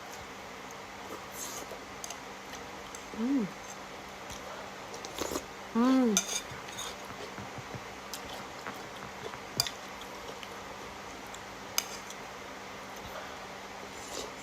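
Cutlery clinking and tapping against a bowl while noodles are eaten, with sharp clicks scattered through. Two short voiced calls that rise and then fall come about three and six seconds in.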